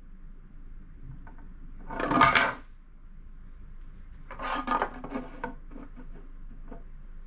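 A framed plastic lithophane handled on a wooden tabletop: a loud clatter about two seconds in as it is lifted off its bulb, then a run of knocks and lighter taps as it is set back down over the bulb.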